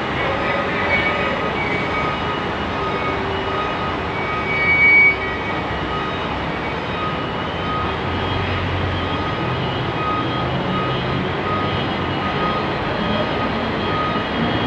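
Steady mechanical rumble on a ferry's enclosed vehicle deck as a loaded truck drives down the ramp toward the listener. The truck's engine grows louder from about eight seconds in. There is a brief louder noise about five seconds in.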